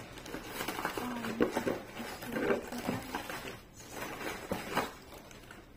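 Rustling and handling of packaging as the next parcel is reached for and moved about, with a few brief low vocal sounds.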